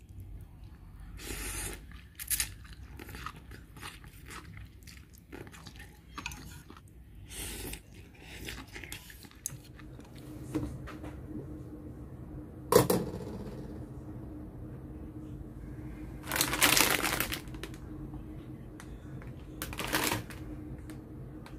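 Eating sounds of ramyun noodles taken with chopsticks from a pot: rustles, chewing and slurping. Then kitchen handling noises over a steady low hum: a sharp clank about halfway through and two loud bursts of crinkling from a plastic instant-noodle packet.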